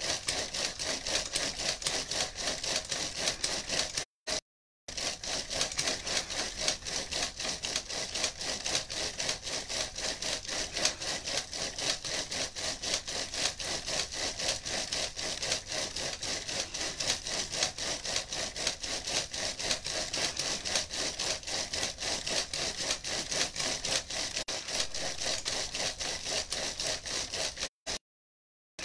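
A person breathing hard and fast into hands held over the nose and mouth, an even rasping rhythm that runs on without pause. It cuts to silence twice, briefly about four seconds in and again near the end.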